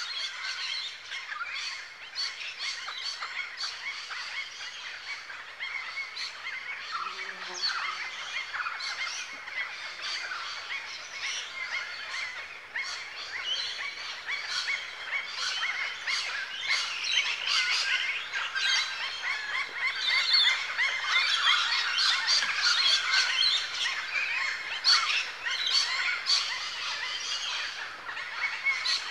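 Dense chorus of many birds chirping and twittering together, getting louder after about the middle.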